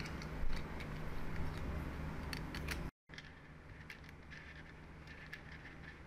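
Small magnetic metal balls clicking as fingers snap them together and press them into place: scattered light, sharp ticks over a steady background hiss, with a brief dropout about halfway through.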